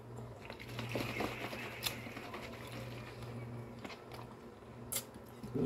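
Faint eating noises: chewing and fingers picking food off a glass plate, with a few sharp clicks, over a steady low hum.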